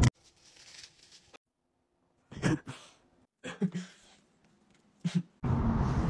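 Three short vocal noises from a person, with near silence between them. About five and a half seconds in, heavy wind starts buffeting the microphone as a head is held out of a moving car's window.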